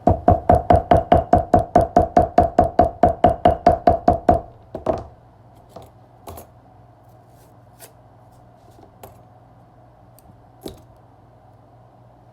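Quick, even knocking, about five knocks a second for roughly four seconds, stopping abruptly, then a few scattered clicks.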